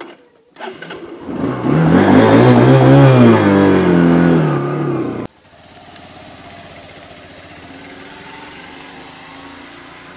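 Honda motorcycle engine revving loudly as it pulls away, the pitch rising and then falling. About five seconds in it cuts off abruptly to a quieter, steady engine run.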